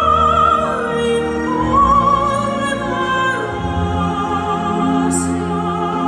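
Operatic singing over an orchestral accompaniment: a voice with strong vibrato holding long notes above sustained orchestral chords, the music of the fountain show.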